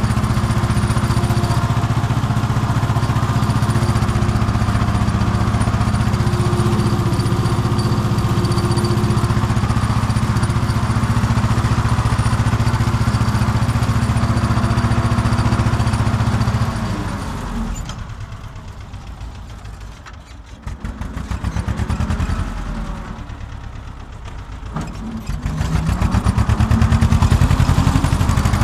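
Farm tractor's diesel engine heard from inside the cab, running steadily at working revs while pulling a ridger. About 17 s in it is throttled back to a slow idle where the single firing beats can be heard. Near the end it revs up again in two rises back to full speed.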